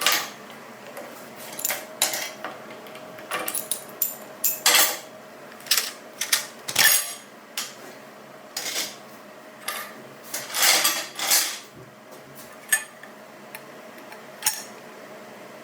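Metal clanks and clinks at irregular intervals, like steel parts and clamps being handled and set down on a steel welding jig table. A few longer scraping strokes come about two-thirds of the way in, over a steady faint hum.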